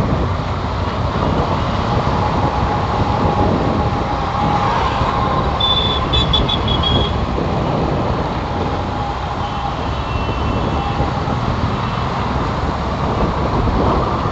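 Steady rushing outdoor noise, loudest in the low end, with a brief high tone about six seconds in.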